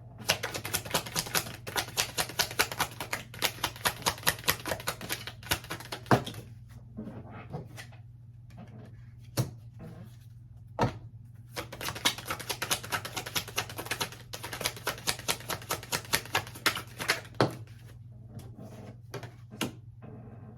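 A deck of tarot cards being shuffled: two long runs of rapid card flicks, with a few single sharp taps between and after them.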